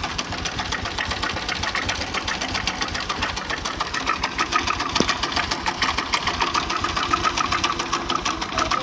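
Honda Revo Absolute's single-cylinder four-stroke engine running at idle with its head cover off, a fast, steady mechanical clatter that gets a little louder about four seconds in. The cam chain is very slack, which the mechanic blames for the engine's tek-tek, kletek-kletek noise.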